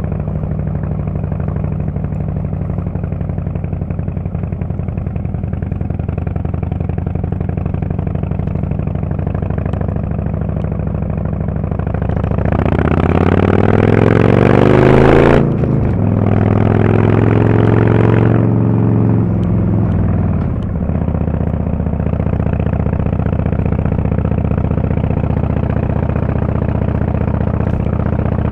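Harley-Davidson Fat Boy S's Screamin' Eagle Twin Cam 110 V-twin through a Kesstech valved exhaust, running steadily at low revs. About twelve seconds in it revs up hard. The revs drop sharply about three seconds later, then climb again, and near twenty seconds the engine eases off and settles back to steady running.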